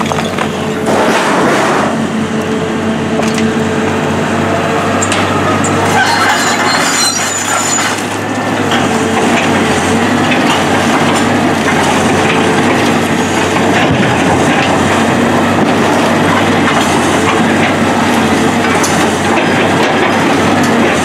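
Tracked excavator's diesel engine running steadily under hydraulic load, with broken wood and demolition rubble clattering and crunching as the bucket grabs and dumps it.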